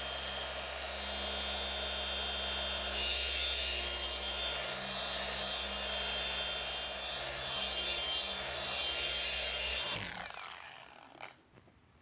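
Cordless polisher running steadily as it buffs car paint with a fine-cut pad and polish, then winding down and stopping about ten seconds in.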